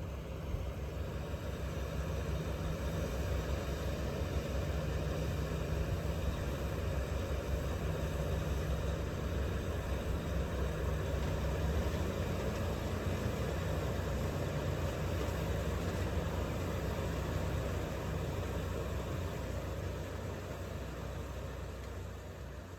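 An engine running steadily at a low idle-like pitch, rising briefly about halfway through and then settling back.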